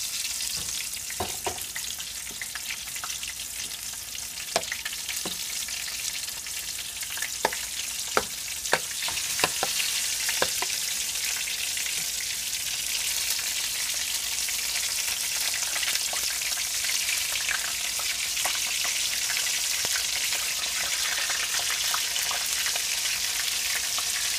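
Battered oyster mushroom pieces sizzling steadily in hot oil in a frying pan over medium heat, the sizzle growing a little louder about halfway through. Scattered sharp clicks and taps of metal tongs and a spoon against the pan and batter bowl come mostly in the first half.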